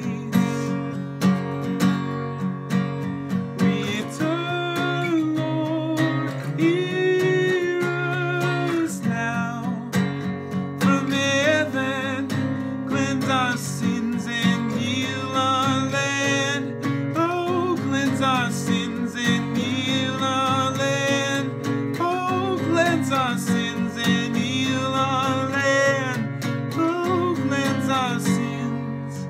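Acoustic guitar strummed steadily, with a man's voice singing over it in long, held notes.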